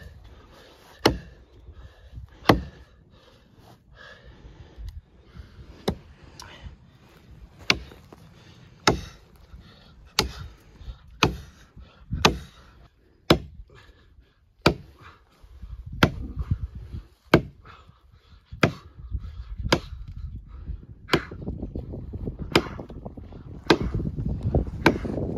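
Hatchet chopping into the base of a standing tree trunk: about twenty sharp wooden blows, roughly one a second. A low rumble comes in under the blows in the second half.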